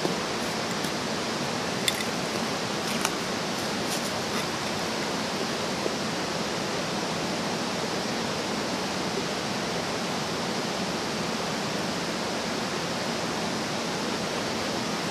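Steady rushing of a river, an even hiss of flowing water, with a couple of faint clicks about two and three seconds in.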